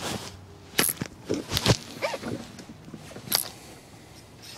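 Scattered sharp knocks and clicks, about half a dozen, from anglers shifting and handling rods and reels in a fishing boat, with a few short squeaks in between.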